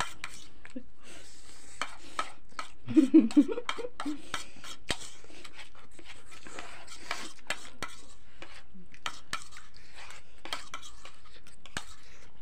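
Spoons clinking and scraping on plates as two people eat instant noodles fast, with many short clicks and some slurping. A short vocal sound, the loudest thing, breaks in about three seconds in.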